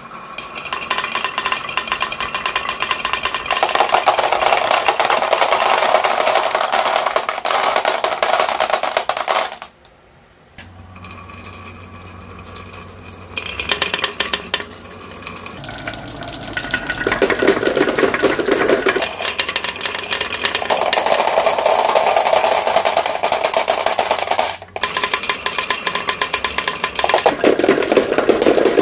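Many glass marbles rolling and clattering down carved wooden wave-track marble-run slopes, clicking against each other and the wooden curves in a dense, continuous rattle. There is a brief near-quiet gap about ten seconds in. Near the end, marbles drop into a plastic toy dump truck.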